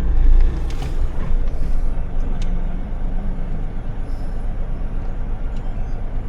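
Motor vehicle running, a steady low rumble of engine and road noise.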